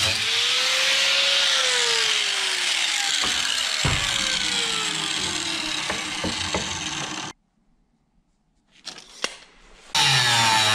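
Corded angle grinder with a cut-off wheel cutting through 1/8-inch steel angle iron: a harsh grinding hiss with a whine that slowly drops in pitch under load. It stops abruptly about seven seconds in, leaving near quiet with a few light knocks, and the grinder cuts again near the end.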